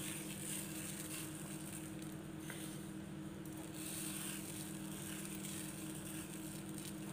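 Steady low electrical hum with a faint even hiss: background room tone, with no clear sound from the sugar being sprinkled. One faint click about two and a half seconds in.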